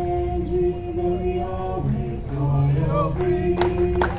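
Voices singing a school fight song unaccompanied, a cappella, with long held notes.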